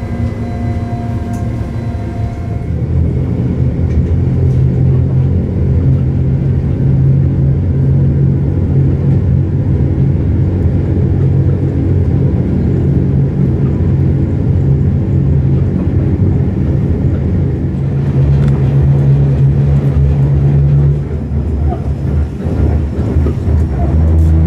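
Inside an Appenzeller Bahnen narrow-gauge rack train on the move: a steady low drone of the traction motors and running gear, with a thin whine of higher tones that fades out about two seconds in. The hum swells for a few seconds near the end.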